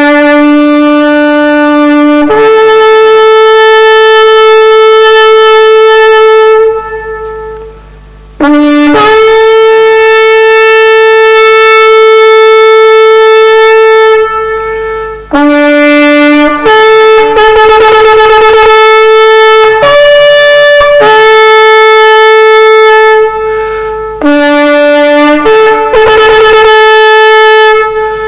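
A shofar sounding a series of long held blasts that switch between a lower and a higher note, each held for several seconds, with a short break about a third of the way in. Twice, in the second half, a blast turns into a rapid wavering flutter.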